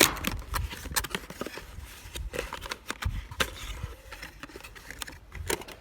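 Packaging being opened and handled by hand: an irregular string of sharp clicks, taps and crinkles.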